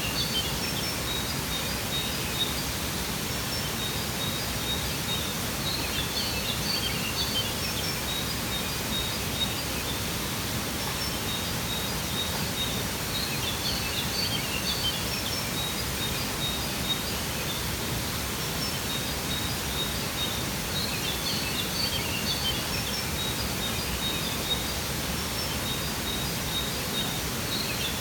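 Steady rushing of a waterfall, with small birds chirping in short clusters of high notes every few seconds over the water.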